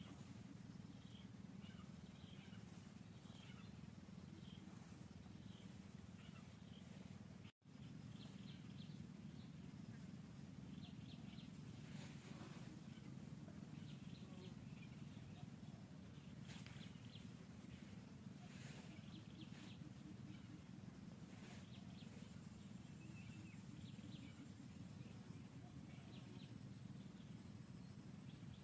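Faint forest ambience: a steady low hum with scattered small bird chirps and, at times, a thin high steady whine. The audio cuts out completely for a split second about seven seconds in.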